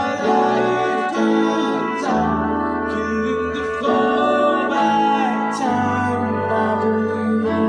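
Live band playing a folk-pop song on acoustic guitars and keyboard, with a sung melody over a steady bass line.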